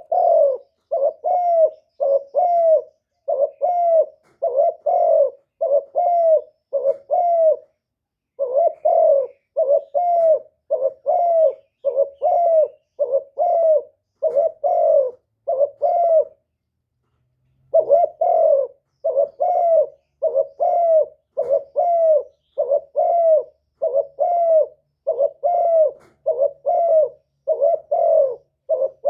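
Spotted dove cooing: a steady run of short, throaty coos, about three every two seconds, broken once by a pause of about a second and a half past the middle.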